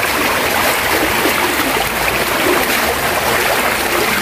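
Floodwater rushing steadily through a narrow concrete channel and splashing through a fine fishing net held across the flow.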